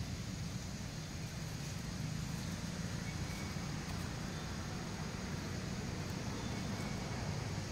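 Steady low rumble with an even hiss over it: outdoor background noise, with a couple of faint, brief high chirps.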